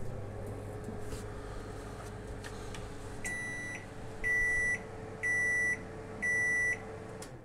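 Samsung MG23K3614AK microwave oven running with a steady hum. Partway through, it sounds four loud beeps about a second apart, each about half a second long: the end-of-time signal after a short 5-second run. The hum cuts off just before the end.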